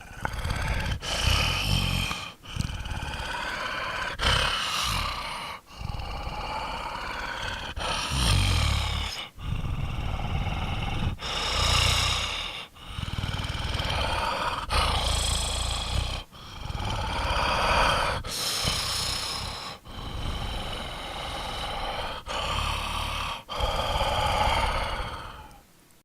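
Zombie sound effects: a long series of short, rough growls and roars, one after another with brief gaps between them, each lasting a second or two.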